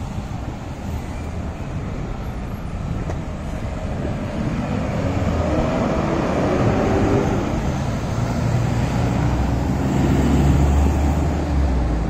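Road traffic on a busy main road: vehicles passing, including a heavy truck and a minibus, a steady hum of engines and tyres. A low engine rumble swells and is loudest about ten seconds in, then eases.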